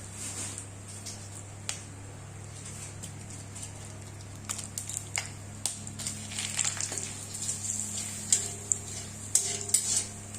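Metal utensil clinking and tapping against a kadai, scattered single taps at first, then a denser run of sharp clinks in the second half, over a steady low hum.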